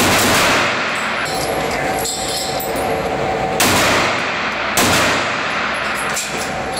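Three 9mm pistol shots from a Ruger Security-9, each with a long echoing tail off the walls of an indoor range: one as the sound begins, then two more a little over a second apart about halfway through.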